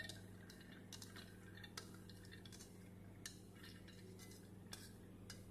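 Faint, scattered clinks and taps as soaked chana dal is tipped and scraped from a steel strainer into a stainless steel mixer jar, about eight light ticks in all, over a low steady hum.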